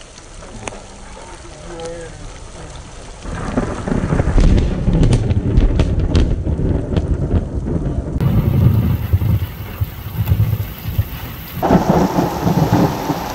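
Thunder from a nearby lightning strike: a loud, deep rolling rumble with sharp cracks, starting about three seconds in and going on for several seconds. Near the end heavy rain pours down hard.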